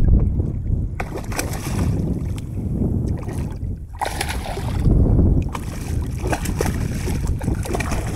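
A hooked redfish thrashing and splashing at the water's surface several times as it is drawn to the net, over a heavy low rumble of wind on the microphone.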